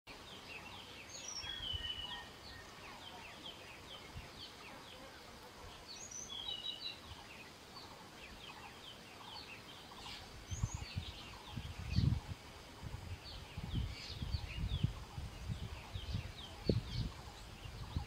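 Several small birds calling, with many short, high chirps throughout and louder phrases about a second in and again around six seconds. From about ten seconds in, irregular low thumps sound underneath.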